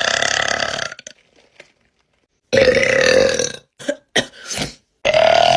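A woman's long, deep burps. One trails off about a second in, another lasts about a second around the middle, then come a couple of short ones, and a last long one starts near the end.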